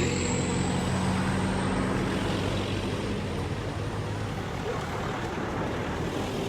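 A motor vehicle's engine running with a steady rush of road or wind noise, the engine hum slowly fading away.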